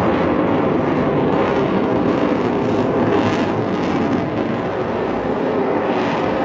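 Lockheed Martin F-22 Raptor's twin Pratt & Whitney F119 turbofan engines, heard as a loud, steady jet rumble as the fighter flies overhead, with a brief rise in hiss about three seconds in.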